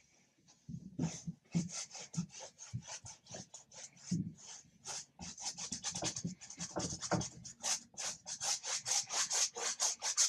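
Paintbrush scrubbing acrylic paint onto a stretched canvas in quick back-and-forth strokes, several a second, starting about a second in.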